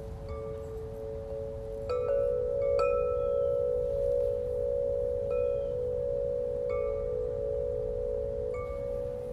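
Chimes ringing over two steady held tones, with a new chime strike every second or two.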